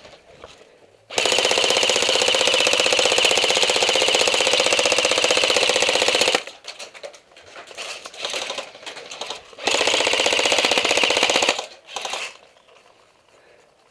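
Airsoft rifle firing full-auto in two long bursts: a rapid, even rattle of about five seconds, then one of about two seconds, with shorter, fainter bursts between them.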